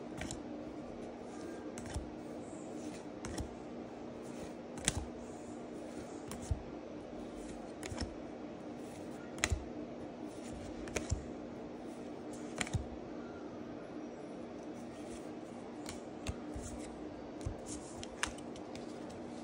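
Pokémon trading cards flipped through by hand, each card slid from the front of the stack to the back with a short sharp click every second or two, over a steady low hum.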